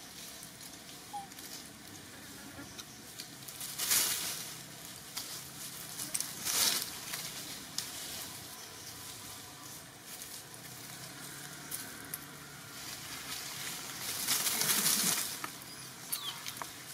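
Rustling of dry leaves and twigs in three short bursts, about 4 s, 6.5 s and 14–15 s in, over a steady outdoor background with scattered small clicks.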